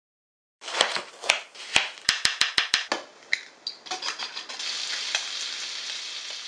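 A wire whisk clicking against a glass bowl as eggs are beaten, several sharp strokes including a quick run of five. Then, from about halfway through, bacon strips sizzling steadily in a frying pan.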